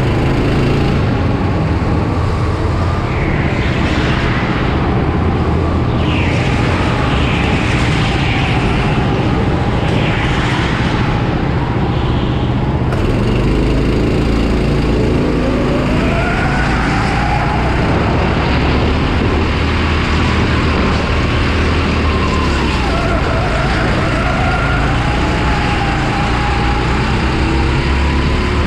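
Onboard sound of a Rimo kart's Honda GX270 single-cylinder engine running hard, its note rising and falling again and again with acceleration and lifting through the corners. In the first half there are several short hissy rushes.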